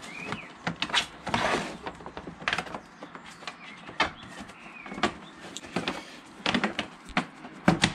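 Plastic clicks, knocks and rustling as a pollen (cabin) filter is pushed and worked into its plastic housing. A longer scraping rustle comes about a second and a half in.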